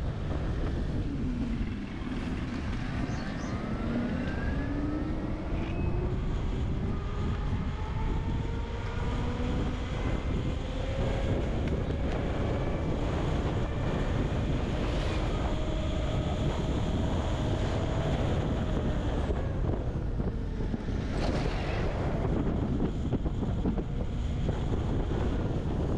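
Revolt RV400 electric motorcycle under way: a whine that climbs slowly in pitch as the bike gathers speed, then fades, over a steady rumble of wind on the microphone.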